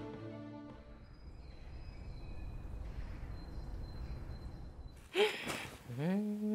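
Background music fades out in the first second, leaving faint outdoor ambience: a low rumble and a few thin high tones. About five seconds in comes a short burst of noise, and then a woman starts humming a tune, her pitch gliding upward.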